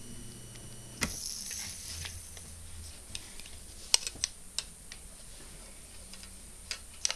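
Bare hard-drive spindle motor running on a power-supply lead with a faint steady whine, which stops at a sharp click about a second in. After that come scattered light clicks and taps of parts and connectors being handled on a table.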